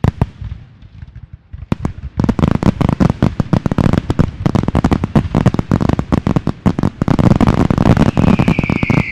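Fireworks going off: a few scattered pops at first, then from about two seconds in a dense, fast crackle of bangs and cracks. A high whistle comes in near the end.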